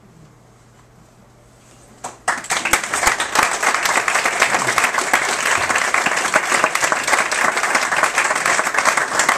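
A concert audience applauding: about two seconds of quiet with a faint hum, then clapping starts suddenly and goes on steadily.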